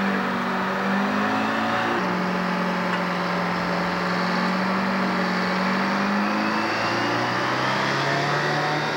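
An engine running steadily, then, from about two seconds in, the outboard motor of a small open skiff running as it motors past. Its pitch drops a little about two-thirds of the way through.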